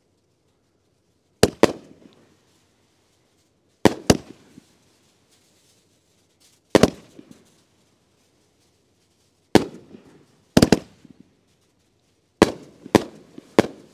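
A 2.25-inch consumer firework cake (Star Spangled Mammoth) firing its shells: sharp booms of shell lifts and bursts every two to three seconds, several coming in quick pairs, with brief echo after each.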